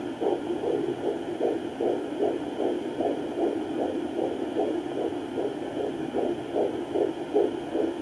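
Fetal heartbeat heard through a Sonoline B handheld fetal Doppler's speaker: a fast, even pulse at about 130 beats a minute, a little over two beats a second.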